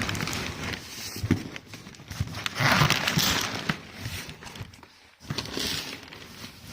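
Cardboard shipping box and its packing rustling and scraping in irregular bursts with small knocks, as a car audio amplifier is worked out of the box by hand.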